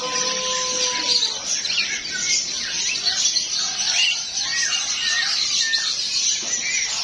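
A dense chorus of many caged birds chirping at once, with short, sharp falling calls standing out over it. A steady held tone stops about a second in.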